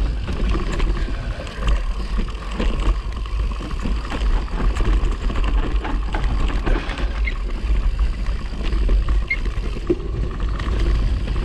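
Mountain bike riding down a dirt singletrack: steady wind rumble on the action camera's microphone, with the tyres crackling over dirt, pine needles and dry leaves and a constant patter of clicks and rattles from the bike.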